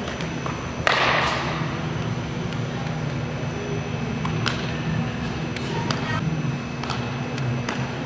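Sharp cracks and pops of a baseball being hit and fielded in an infield ground-ball drill, with the loudest impact about a second in and several more scattered knocks later, over a steady low hum.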